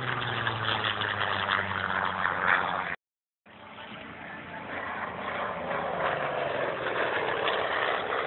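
Piston-engine warbird flying past, its engine drone falling in pitch as it goes by, heard in two stretches broken by a brief silent gap about three seconds in.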